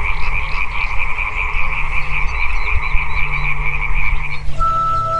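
A chorus of frogs croaking, a dense fast-pulsing chatter. It stops near the end and background music with held notes takes over.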